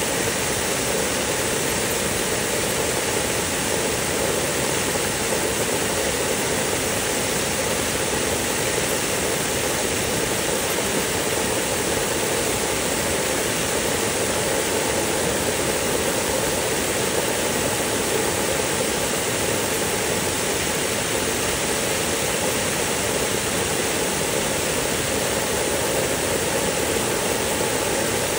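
Water spraying in a fine mist onto wet mulch: a steady, even hiss.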